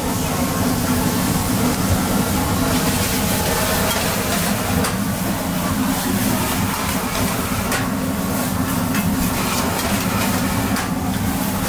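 Xinjiang-style fried rice noodles being stir-fried in a wok over a gas wok burner: a steady loud low rumble from the burner under a sizzling hiss, with a few short clinks of the spatula on the wok.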